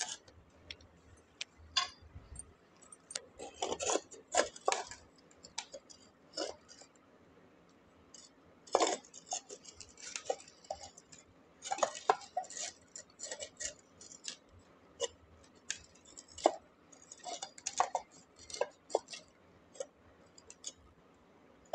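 Irregular small clinks, taps and scrapes of a broken terracotta shard being set against a clay pot and pressed into potting soil, with busier clusters of scraping now and then.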